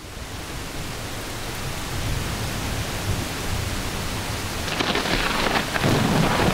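Steady rain with low thunder beneath it; the thunder swells about five seconds in.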